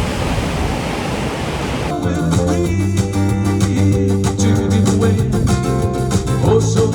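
A steady rushing noise for about two seconds, then an abrupt cut to background music with plucked guitar and a steady beat.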